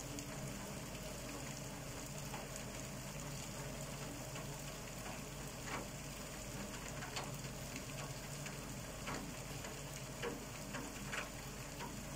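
Ordinary steady rain falling: a soft, even hiss with scattered single drops tapping now and then.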